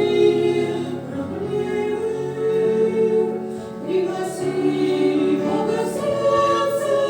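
A church choir singing a Christmas hymn in held, sustained chords.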